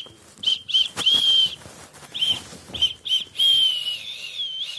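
A person whistling at a high pitch: a string of short whistled notes broken by a few longer held ones that wobble slightly in pitch, the longest near the end.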